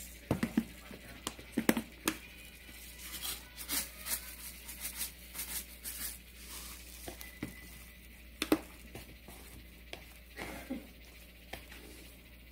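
A gloved hand tossing and squeezing seasoned wild chives (dallae) in a wooden bowl, making irregular soft crinkles, squelches and knocks against the bowl. Sesame seeds are shaken in from a jar partway through.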